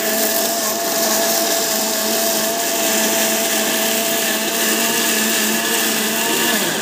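Electric mixer grinder running steadily, grinding mint chutney in its jar: a loud, even motor whine with the blade churning the paste. It is switched off right at the end and spins down.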